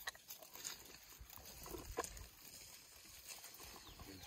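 Faint, scattered crackles and snaps of twigs and branches as an elephant browses in a thicket, the sharpest snap about two seconds in.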